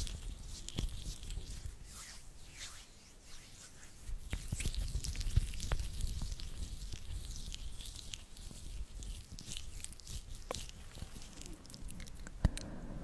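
Close-miked ASMR sticky mouth sounds: a run of small wet clicks and smacks, with a quieter stretch a few seconds in.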